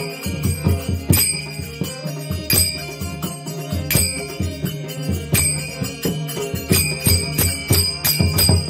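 Bhajan accompaniment: heavy brass hand cymbals on ropes clash and ring over pakhawaj drum strokes and a harmonium. The cymbal clashes fall about every second and a half, then come quicker near the end.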